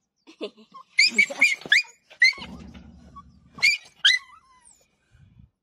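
A small dog yelping and squealing in short, high-pitched cries in several bursts, with a low growl partway through. These are the frightened, defensive cries of a cornered dog being grabbed by gloved hands.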